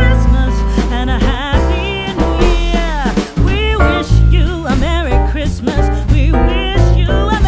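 Background song: a singer's voice over guitar, bass and a steady beat.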